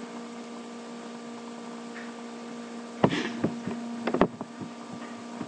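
Steady electrical mains hum, with a few sharp computer mouse clicks about three seconds and four seconds in.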